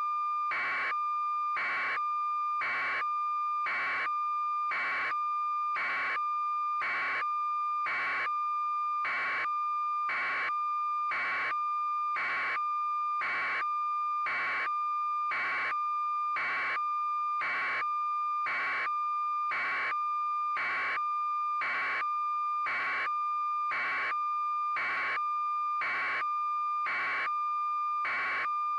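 Continuous high-pitched electronic tone with a regular beep pulsing through it, about three beeps every two seconds, never changing.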